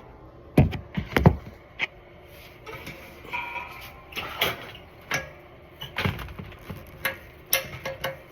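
Irregular clicks and knocks of parts being handled and fitted back onto an air compressor during reassembly, with a couple of louder knocks about a second in.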